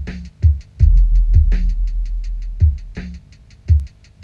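Electronic soundtrack music: deep booming kick-drum hits over a quick, steady ticking beat, with a low held tone underneath.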